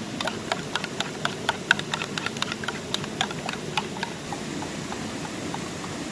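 Metal spoon clinking rapidly against a bowl while beating eggs, about five clicks a second for some four seconds, then fainter and sparser before stopping.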